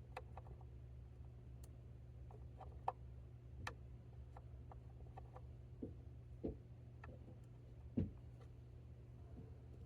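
Irregular small clicks and taps of a Phillips screwdriver working the screw out of a plastic toy's battery cover, the strongest about three seconds in and again about eight seconds in, over a steady low hum.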